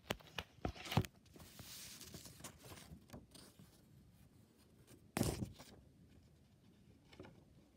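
Paper and card being handled on a newspaper-covered table. A few sharp knocks and clicks come first, then rustling, and a brief louder rustle about five seconds in as a sheet of card is slid across the papers.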